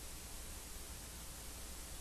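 Steady hiss of static with a low hum underneath, even and unchanging.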